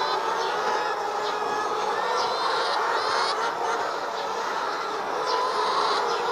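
A flock of laying hens clucking and calling all at once, a steady dense din with short high chirps over it.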